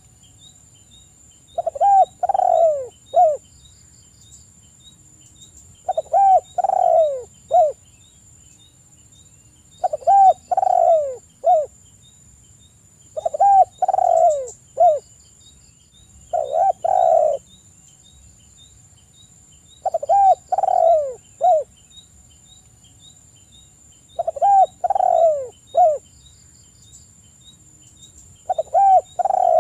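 Spotted dove cooing: a phrase of three or four notes, each sliding downward, repeated about every four seconds.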